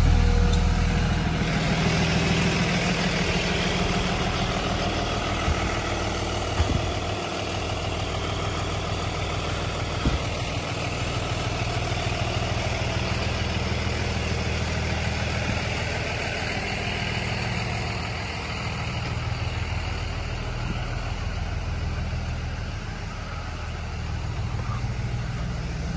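2022 Blue Bird Vision school bus engine idling steadily, a little louder in the first second or two, with a couple of light clicks.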